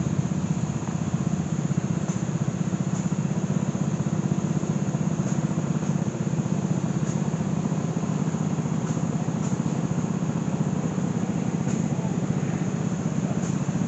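Engine running steadily nearby, a continuous low drone with a fast, even firing beat and no change in speed.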